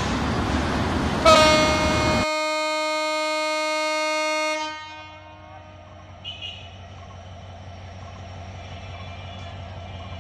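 Train running past close with loud wheel and rail noise. About a second in, a locomotive air horn sounds one long blast of about three seconds. The rail noise cuts off abruptly partway through the horn, and the horn then fades out. After that, a diesel locomotive approaching in the distance gives a low steady rumble, with two brief high chirps around six seconds in.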